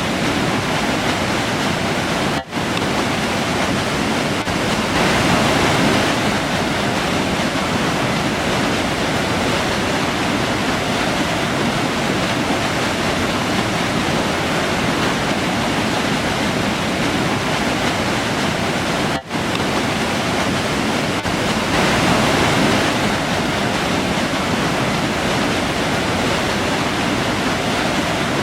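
Steady rushing of a river running through a forest, drowning out all else, with two momentary dropouts about 2.5 seconds in and again about 19 seconds in.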